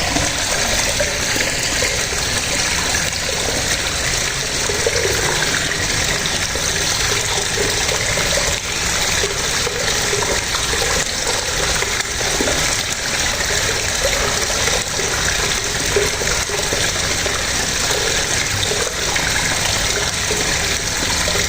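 Water spraying steadily from the hose gun of a small DC electric pump washer, with the pump running under load.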